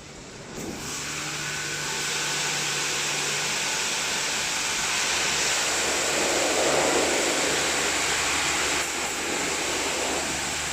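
Christ Varius rollover car wash running: a steady rushing hiss of jets or blowers with a low motor hum, switching on just under a second in and holding steady.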